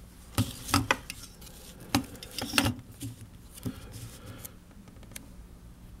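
Handling noise from a PCIe network adapter card being picked up and turned over on an anti-static bag: scattered sharp clicks and taps, with some rustling of the bag between them.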